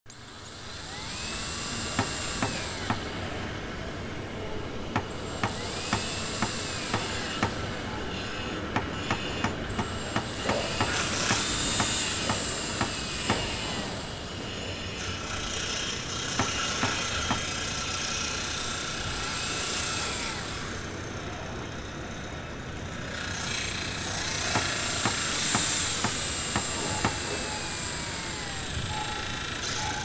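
Construction site work noise: a steady din with repeated sharp knocks, several a second in places, and a few rising-and-falling squeals.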